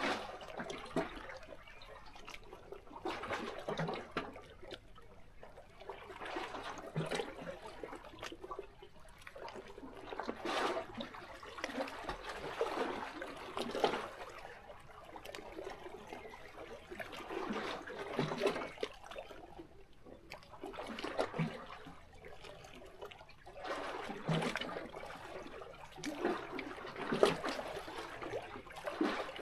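Small sea waves lapping and splashing against rocks, a new wash rising and sinking back every three to four seconds.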